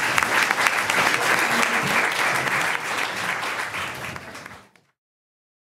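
Audience applauding at the end of a lecture, dying away and ending about four and a half seconds in.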